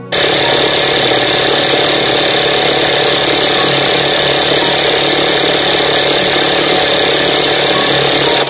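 MALUCP 12V DC portable tyre inflator running steadily under load, pumping up a car tyre while the pressure climbs toward its shut-off setting. Loud and unvarying, it starts abruptly and cuts off suddenly near the end.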